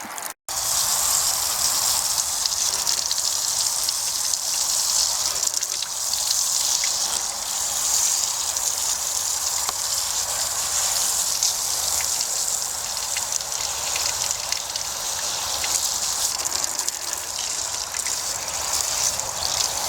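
Steady rush of water spraying from a garden-hose-fed coil cleaning tool onto dehumidifier coils, rinsing them clean.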